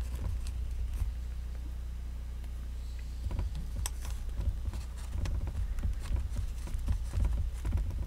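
Soft taps, rubs and small clicks of hands working the white covering on a foil-wrapped sculpted toucan beak, mostly from about three seconds in, over a steady low hum.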